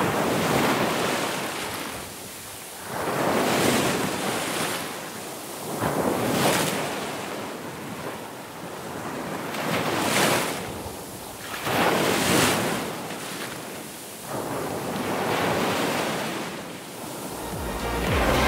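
Wind and sea noise swelling and fading every two to three seconds, like waves washing, with wind buffeting the microphone. Electronic music comes in near the end.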